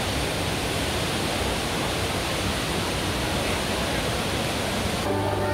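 Steady rushing roar of the Rain Vortex, a tall indoor waterfall pouring down from a glass dome into a pool. Near the end the water sound cuts off abruptly and music with long held notes takes over.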